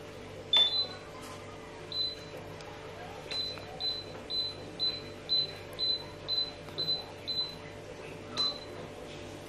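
Touch-control glass cooktop beeping as the stove is switched on with repeated taps on its controls. It gives short, high single beeps: one, another a second or so later, then a run of about nine at roughly two a second, and one more near the end.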